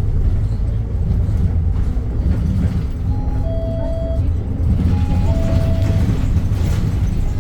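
Cabin rumble of an Edison Motors Smart 110G CNG city bus with its GX12P engine running. In the middle an electronic two-note chime, a short high note stepping down to a longer lower one, sounds twice.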